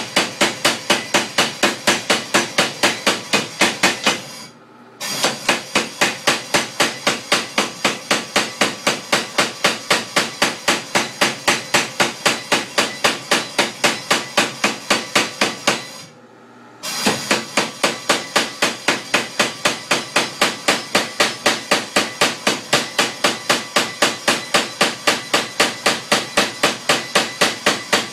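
Small air-powered forging hammer striking red-hot steel (heated to about 2400°F) in a steady rapid rhythm of about four blows a second, stopping twice for under a second.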